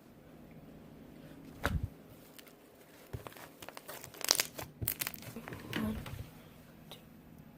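Slime being handled, giving a run of irregular sticky crackles and pops that start about a second and a half in and die away after about six seconds.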